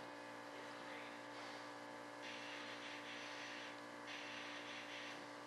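Faint steady electrical hum in a small workshop, with soft hissing swishes of a brush being worked over a fibreglass wing mold: a longer one about two seconds in and a shorter one about four seconds in.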